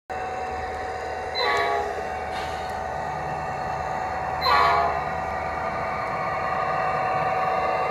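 Sound-equipped large-scale model of a Norfolk Southern GP-60 diesel locomotive giving two short horn blasts through its onboard speaker, the second louder, over its steady diesel running sound.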